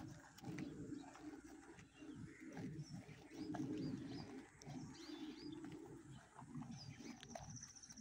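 Water buffalo tearing and chewing grass while grazing: irregular rough ripping and munching, about one or two bites a second. Small birds chirp in the background, with a short trill near the end.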